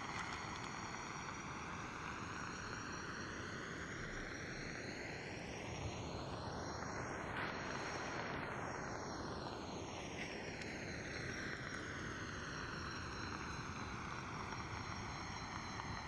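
An aircraft passing high overhead: a steady rushing drone whose tone sweeps with a phasing effect, peaking about halfway through and then receding.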